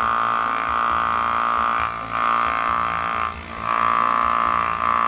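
The built-in electric vacuum pump of an S993A desoldering gun buzzing steadily as it sucks molten solder off a component pin, dipping briefly about two seconds in and again about three and a half seconds in.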